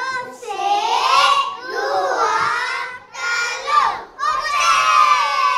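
A group of children chanting together in high voices, several long drawn-out phrases with short breaks between them, as a sung call in a children's game dance.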